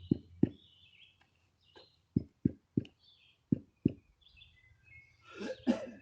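A series of dull knocks, coming in twos and threes, with birds chirping over them. A louder, rougher sound comes near the end.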